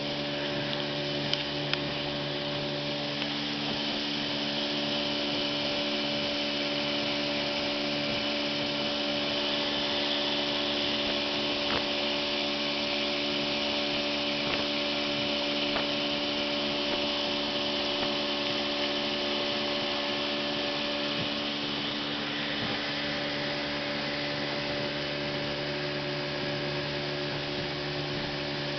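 Small motorboat's engine running steadily at cruising speed, with the rush of wind and water as the hull planes across the lake. Its note holds steady, shifting slightly about two-thirds of the way through.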